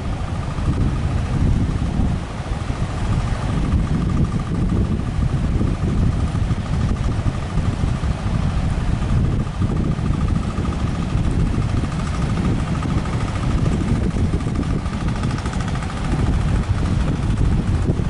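Strong wind buffeting the microphone over breaking surf, with a steady engine drone from a motorised outrigger fishing boat running underneath.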